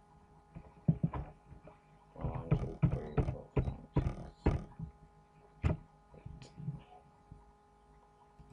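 Computer keyboard typing: a quick run of keystrokes about two seconds in, then a few single key presses, over a faint steady electrical hum.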